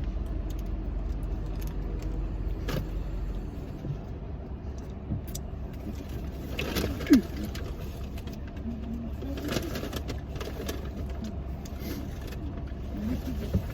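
Low steady hum of a car, with scattered small clicks and rustles and one sharp click about seven seconds in.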